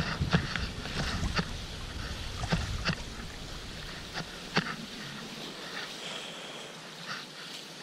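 Choppy sea sloshing and splashing around a sea kayak in breaking surf among rocks, with sharp slaps of water against the boat and paddle every second or so. A low wind rumble on the microphone dies away about three seconds in.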